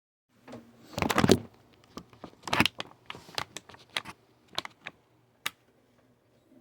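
Handling noise: an irregular run of clicks, knocks and rustles, loudest about a second in and again about two and a half seconds in, with a single sharp click near the end.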